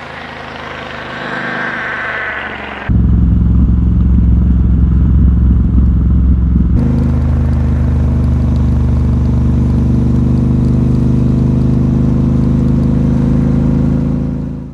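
Motorcycle engine, likely the Triumph Scrambler 1200 XE's parallel twin, running steadily. About three seconds in it suddenly becomes much louder and deeper, it shifts again about seven seconds in, and it cuts off abruptly at the end.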